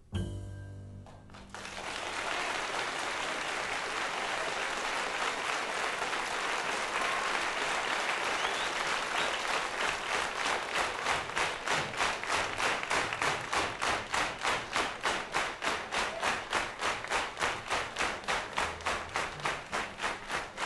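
A jazz trio's last piano and double-bass notes ring out, then a club audience breaks into loud applause about a second and a half in. From about ten seconds the applause turns into steady rhythmic clapping in unison, roughly two to three claps a second.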